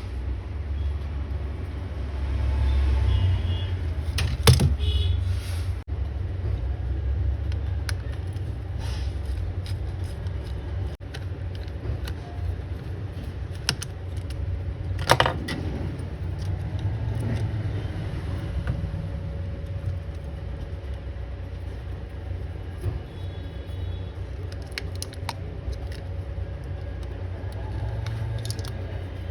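Steady low rumble of road traffic, with a few sharp clicks and light metallic clinks, the loudest about four and fifteen seconds in.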